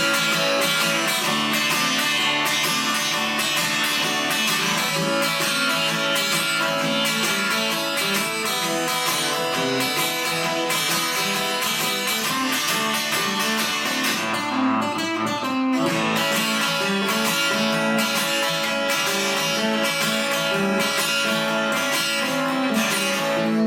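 Instrumental break in a live song: guitar played with steady strumming and no singing.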